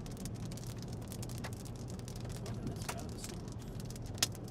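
Hailstones striking a moving car, a scattered run of sharp irregular taps on the body and windshield, with one louder strike about four seconds in, over the steady low hum of the car on the road.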